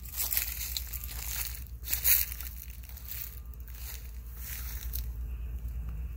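Footsteps crunching through dry fallen leaves on a dirt path, several irregular crunches with the loudest about two seconds in, thinning out near the end. A low steady rumble sits underneath.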